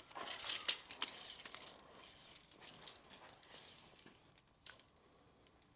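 A steel tape measure being pulled out, its blade rasping and clicking with hand-handling noise, louder in the first two seconds and then a few faint ticks.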